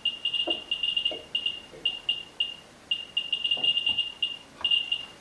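Ludlum Model 12 count rate meter's audio speaker chirping once for each neutron the helium-3 tube detects: short, high-pitched chirps in an uneven, random patter of about five a second. This is the high count rate of the assembled polonium-beryllium neutron source. A few soft knocks come from polyethylene moderator blocks being set in place.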